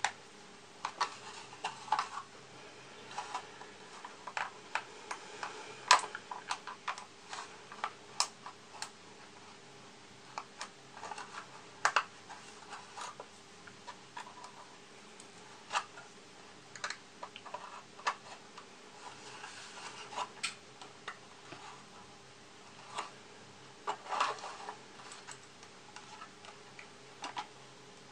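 A small hobby tool picking and prying at a glued plastic model kit part: irregular light clicks, a few sharper snaps and short scrapes of the blade against the plastic as the part is worked loose.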